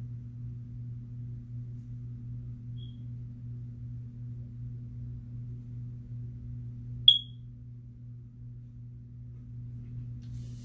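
A single short, high electronic chirp about seven seconds in, with a much fainter one a few seconds earlier, over a steady low electrical hum.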